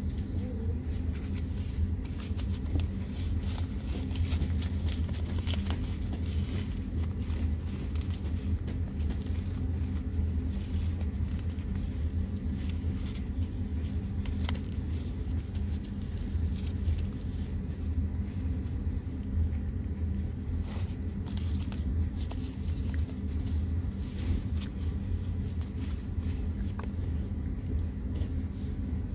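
Steady low rumble of a moving car heard inside the cabin, with scattered light clicks and rustles throughout.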